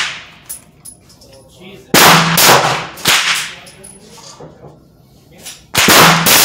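Rock Island Armory VR80 12-gauge semi-automatic shotgun firing: shots about two seconds in, again about a second later, and near the end, each followed by echo off the concrete range booth.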